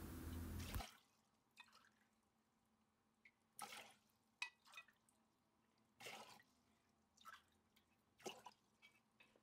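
Near silence with a few faint splashes and drips of water being poured from a glass into a stainless steel pot.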